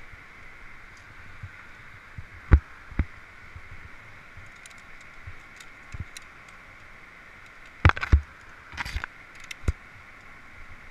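Sharp metallic clacks and knocks of via ferrata carabiners and gloved hands against the steel safety cable as a climber moves along it, a couple of strikes early and a quick cluster near the end, over a steady hiss.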